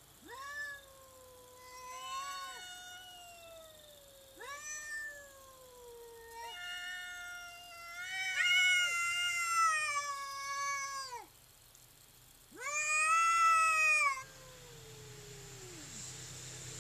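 Cats yowling at each other in a standoff: a series of long, drawn-out wavering howls, two voices overlapping in the middle, the last one trailing off downward.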